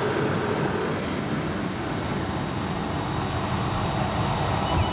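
Steady rush of engine, propeller and air noise heard inside the cabin of a small propeller airplane as it lands and rolls along the airstrip.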